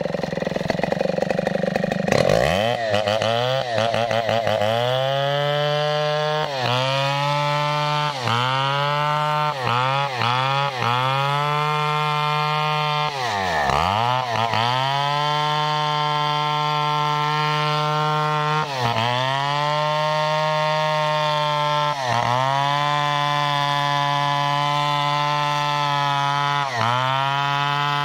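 Stihl two-stroke chainsaw cutting through a felled sonokeling (Indonesian rosewood) log at high revs, a steady high engine whine. It picks up about two seconds in, then dips briefly in pitch every few seconds and once drops nearly to idle about halfway through.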